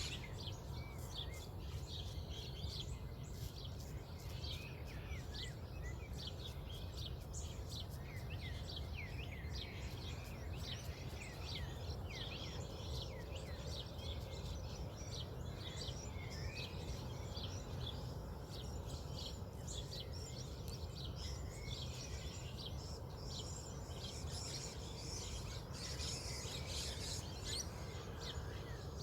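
Dawn chorus of many birds chirping and calling at once, with quick short notes overlapping throughout, over a steady low rumble.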